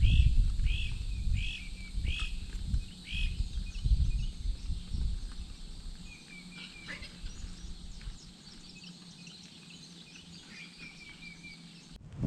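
A songbird repeats one slurred note about five times, evenly spaced, then gives shorter runs of chirps later on. Wind rumbles on the microphone during the first half.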